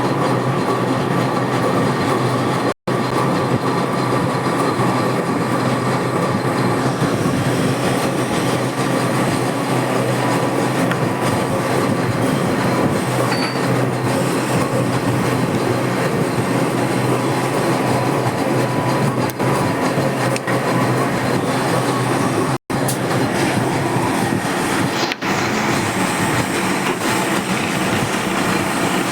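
Metal lathe running steadily while turning a part, a continuous mechanical rumble and hiss with faint steady tones. It cuts out abruptly for an instant twice, about three seconds in and again near the end.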